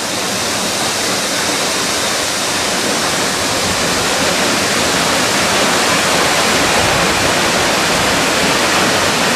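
Mountain waterfall pouring down a rock face into a pool: a steady, loud rush of water that grows slowly louder.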